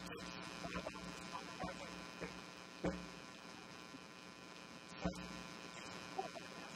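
Steady electrical mains hum and buzz, with a few faint knocks, two of them clearer about three and five seconds in.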